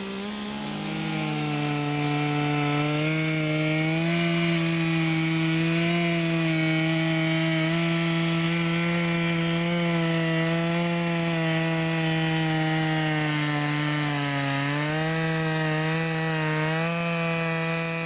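Chainsaw in a Norwood PortaMill chainsaw mill ripping lengthwise through a log, held at steady high revs under load. Its pitch sags briefly about three-quarters of the way through as the cut loads it.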